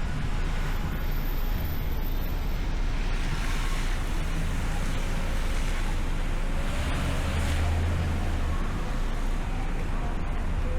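Steady city street noise of passing traffic with a low rumble, swelling louder about seven seconds in as a vehicle goes by.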